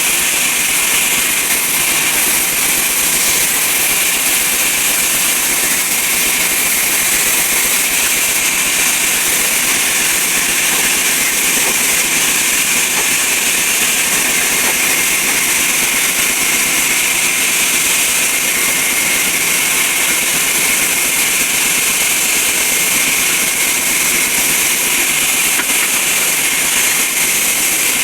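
Sawmill saw machine (aara machine) running steadily: a loud, even noise with a strong high hiss and no breaks.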